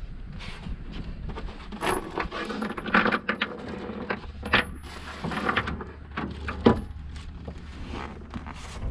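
Metal parts and hand tools clinking and knocking during hands-on engine work, with a series of irregular light metallic clicks and taps and a sharper knock about two-thirds of the way through.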